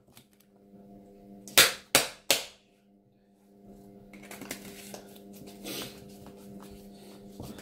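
Three sharp slaps of a ball of slime smacked between the palms, about a third of a second apart, starting about one and a half seconds in. After that come quieter handling noises over a steady low hum.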